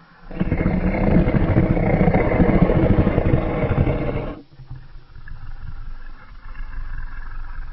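Custom-made Godzilla roar sound effect: a loud, harsh, rasping roar about four seconds long that cuts off abruptly, followed by a quieter low rumble.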